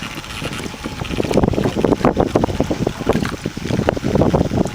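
Wind buffeting the microphone in uneven gusts, stronger from about a second in.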